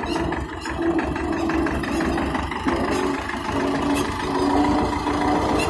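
Tractor diesel engine running steadily with an even low pulsing beat while the front-end loader works.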